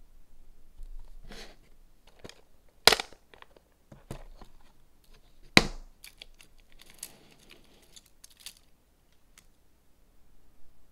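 Handling of nail supplies: two sharp snaps about three seconds apart stand out from light rustling and small clicks.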